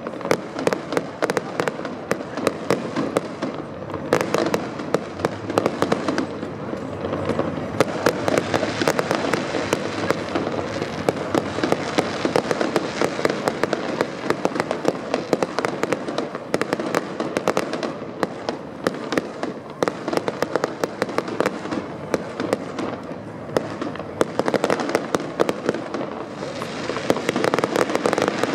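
Fireworks display: a dense, unbroken run of bangs and crackles from shells bursting overhead, many sharp reports a second.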